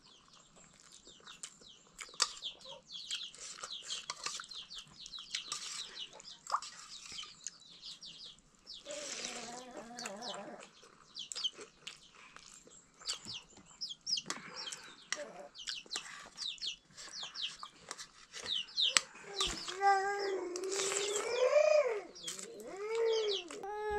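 Chickens: many short high peeps throughout, with louder pitched, arching calls of a hen clucking about nine seconds in and again from about nineteen seconds to the end.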